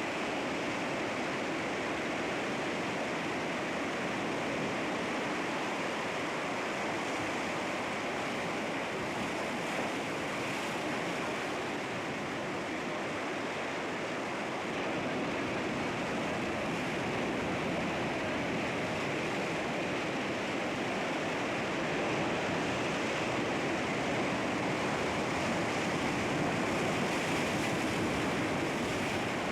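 Sea waves washing against rocks: a continuous, steady rush of surf that swells slightly in the second half.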